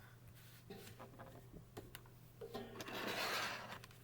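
Faint rubbing and rustling of objects being handled, swelling about two and a half seconds in, with a few light clicks over a low steady hum.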